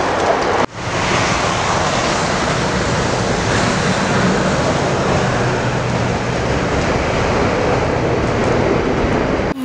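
A steady, loud rush of wind with no clear pitch, breaking off briefly and starting again under a second in.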